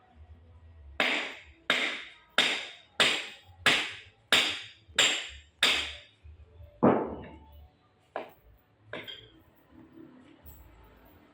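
A run of eight sharp strikes in a steady rhythm, about one and a half a second, each ringing briefly. Then comes a heavier, deeper strike, followed by two lighter knocks.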